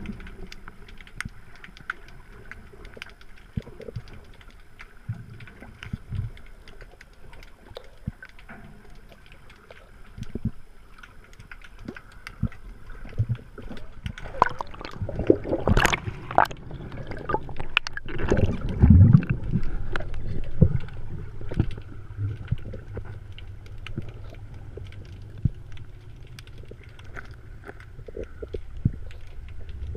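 Muffled underwater sound picked up by a submerged camera in murky water: scattered small clicks and water movement, with a louder, churning stretch of water noise around the middle and a steady low rumble through the last part.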